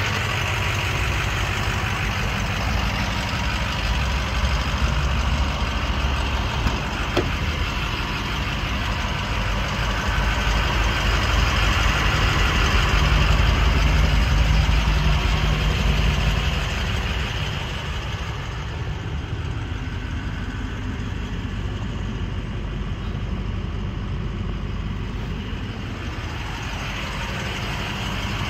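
Ford 6.0 Powerstroke V8 turbo diesel idling steadily. It is louder for a few seconds about halfway through, then quieter.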